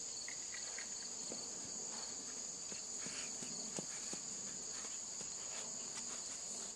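A steady high-pitched insect chorus. Through it come faint, irregular soft thuds of a pony's hooves moving on arena sand.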